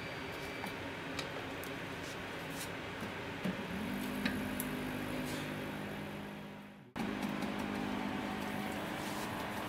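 Vacuum mixer for dental stone. After a click about three and a half seconds in, its motor starts and runs with a steady hum while the stone mixes under vacuum. The sound cuts out for an instant near seven seconds and then goes on.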